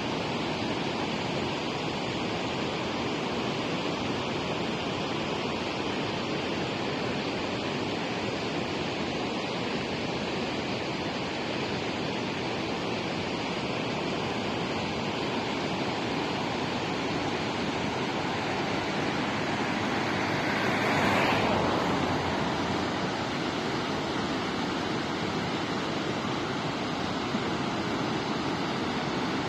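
Swollen mountain river running fast in white water: a steady rushing roar. A brief louder whoosh rises and falls about two-thirds of the way through.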